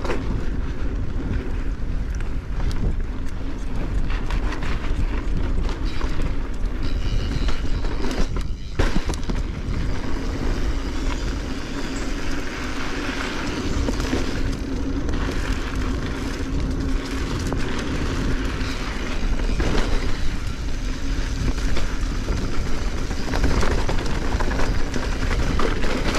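Mountain bike rolling down a dirt trail: a steady rumble of tyres and bike over the ground with frequent small knocks and rattles.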